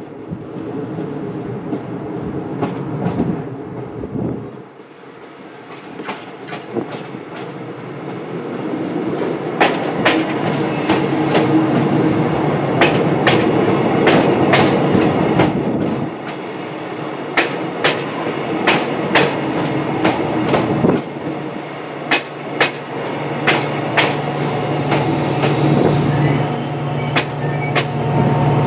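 TransPennine Express train of Mark 5A coaches with a Class 68 diesel locomotive running into the platform, its wheels clacking over joints in the track as the coaches go by. From about two-thirds of the way through, the steady note of the locomotive's diesel engine rises as it draws near, with a brief hiss a little later.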